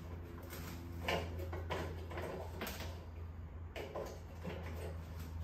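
A few short clicks and scrapes of hands working wires and hardware inside an electrical box, over a steady low hum.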